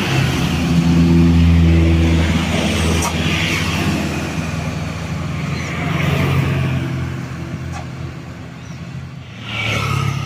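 Heavy diesel bus engines labouring up a steep climb as they pass close by. The loudest pass comes a second or two in and another engine swells about six seconds in, with a burst of hiss near the end.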